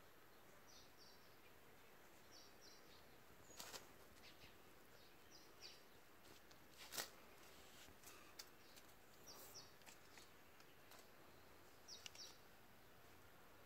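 Near silence: faint outdoor ambience with a small bird chirping in quick runs of two or three high notes every few seconds, and a few soft clicks, the clearest about seven seconds in.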